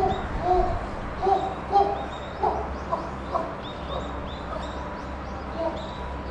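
Chimpanzee calling: a run of short, pitched cries, about two a second, loudest in the first half and thinning out toward the end.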